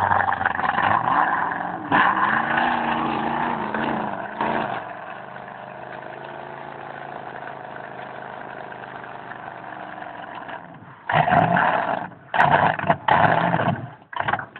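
A 4x4's engine revving hard as the truck churns through deep mud, its pitch rising and falling. It then settles to a steadier, quieter run for several seconds before loud revving surges again near the end.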